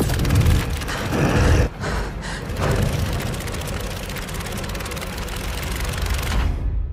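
Magazine pages flapping and fluttering rapidly, as if in a strong wind, over a deep rumble. The flapping cuts off suddenly about six and a half seconds in, leaving the rumble.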